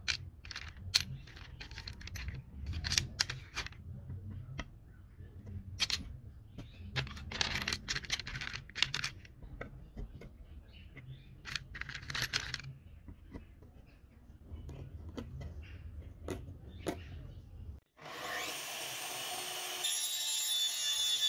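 Wooden dowels clicking and scraping as they are picked out of a plastic box and pressed into holes in a wooden strip: irregular short clicks and rubs of wood on wood over a low outdoor rumble. Near the end, after a sudden cut, a louder, steady whirring noise with several constant tones takes over.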